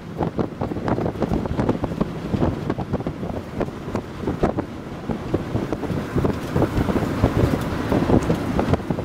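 Strong, gusty wind buffeting the microphone, with uneven surges throughout.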